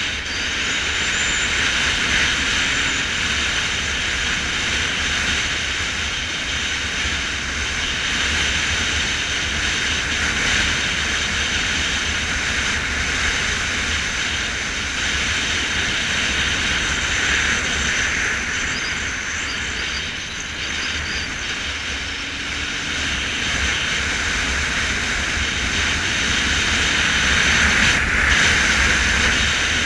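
Motorcycle cruising at a steady speed, its engine running under a steady rush of wind and road noise on the bike-mounted camera.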